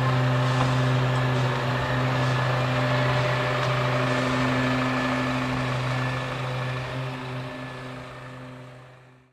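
A vehicle engine idling with a steady low hum over general street noise, fading out over the last few seconds.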